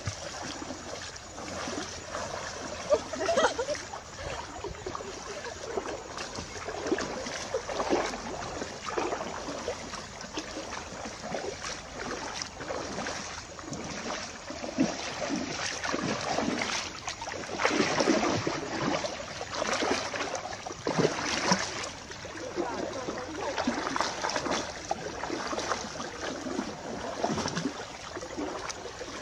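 People wading through shallow river water, their legs pushing and splashing through it in an uneven rhythm of step after step.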